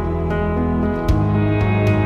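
Background music: soft, slow instrumental with sustained chords that change about a second in, over light ticking percussion.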